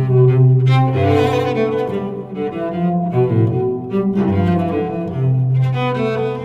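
An LG G8/V50 phone alarm tone playing: an instrumental tune in a bowed-string style, with long low held notes under a higher melody that changes note every half second or so.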